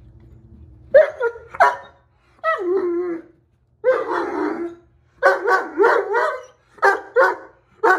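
Great Dane puppy barking in play, starting about a second in: short barks with a couple of longer, drawn-out ones in the middle, then quicker barks in rapid pairs toward the end.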